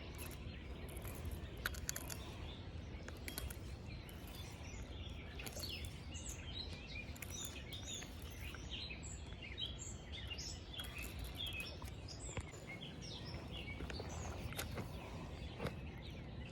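Several birds chirping and calling, many short chirps scattered throughout, over a steady low background rumble with a few faint clicks.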